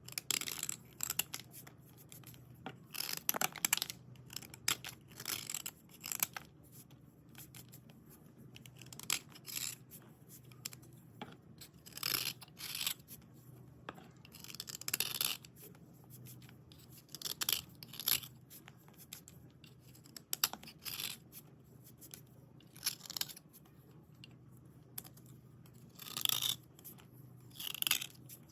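Dry white slate items being scraped clean by hand: short, irregular scratchy strokes of chalky grit, coming in uneven clusters every second or so.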